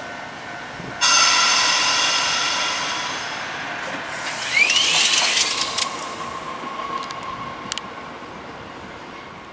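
Kotoden electric train departing a platform. About a second in, a loud tone with many overtones starts suddenly and fades over a few seconds. Then a burst of hiss with a quickly rising whine comes as the train pulls away, dying down toward the end.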